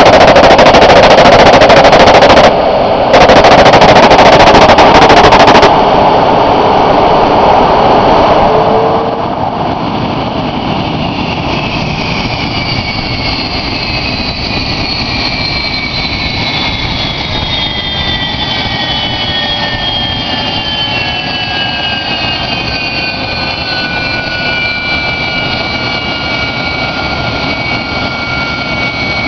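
A-7 Corsair II jet engine in a ground run-up, running very loud at high power at first, then throttled back about eight seconds in. After that its whine falls steadily in pitch as the engine spools down toward idle.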